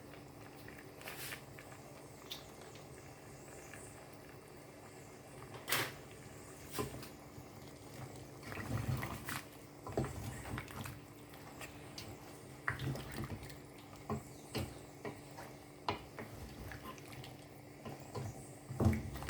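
Cooking pot and utensils being handled: scattered clicks, clinks and knocks, busiest about halfway through and again near the end, over a faint steady hum.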